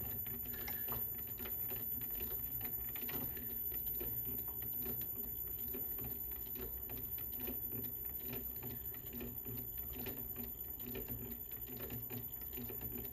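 Clark CL500 metal lathe running at low speed with its threading gear engaged: a steady low hum with a fast, light ticking.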